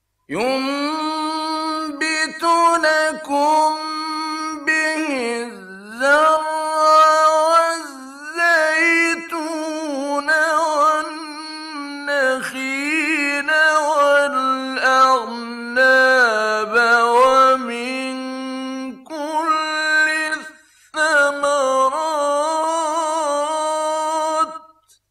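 A male reciter chanting the Qur'an in the melodic mujawwad style: one unaccompanied voice with long held notes, slides and ornamented runs, breaking off briefly about twenty seconds in.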